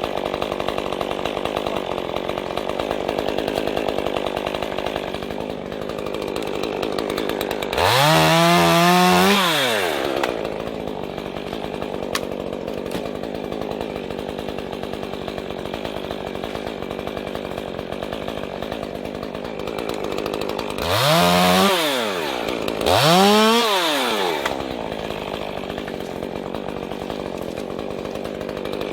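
Two-stroke chainsaw running steadily, speeding up three times to a loud high whine and dropping back each time: once about 8 seconds in and twice in quick succession past 20 seconds.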